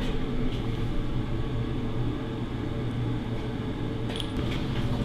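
A steady low mechanical hum, with a couple of light clicks about four seconds in.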